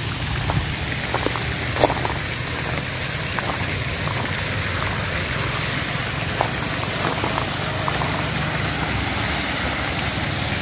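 Pond paddlewheel aerator churning water, a steady splashing rush, with a few faint clicks.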